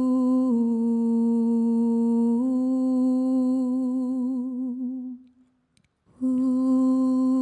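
A single voice humming long, sustained notes. The pitch steps down about half a second in and back up about two and a half seconds in, then wavers before fading out around five seconds. After a short silence, about six seconds in, the same hummed phrase starts again.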